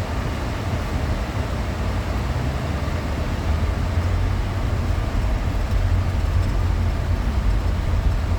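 Minivan driving on a rough dirt road, heard inside the cabin: a steady low rumble of engine and tyres with road noise, getting a little louder about three and a half seconds in.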